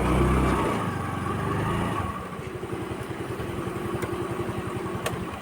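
Yamaha ZR scooter's small engine running, dropping about two seconds in to a quieter, steady idle with even low pulses.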